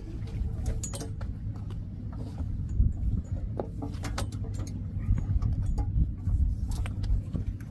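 Scattered light clinks and knocks of the tender's davit straps and metal fittings being handled, over a steady low rumble.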